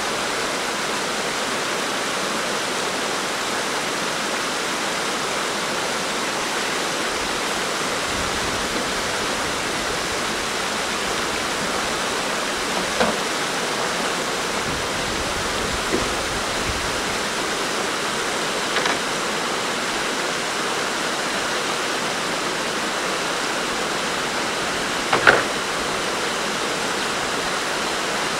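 Steady rushing of wind over an open river. Low gusts buffet the microphone a couple of times, and a few short splashes or knocks come through, the loudest near the end.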